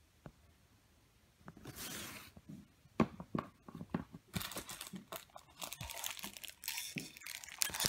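Packaging being handled and torn open by hand: crinkling, rustling and tearing. It starts nearly quiet, with a short rustle around two seconds in, then a run of crackles that grows denser from about four seconds in.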